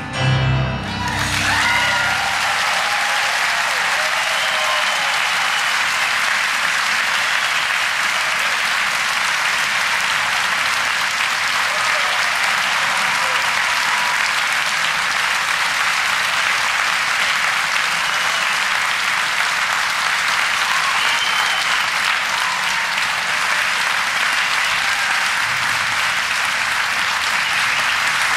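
Large theatre audience applauding steadily, a standing ovation with a few scattered cheers.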